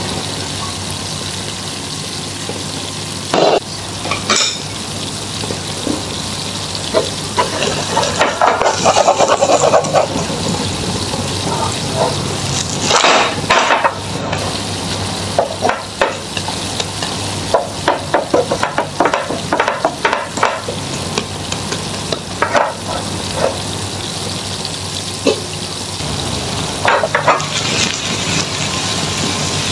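Egg and napa cabbage omelette frying in oil, sizzling steadily, with scattered scrapes and knocks of a utensil against the pan.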